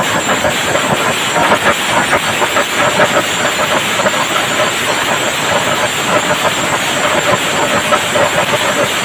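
Kerala chenda melam: a large ensemble of chenda drums beaten fast and loud together, with ilathalam cymbals, making a dense, unbroken roll of strokes.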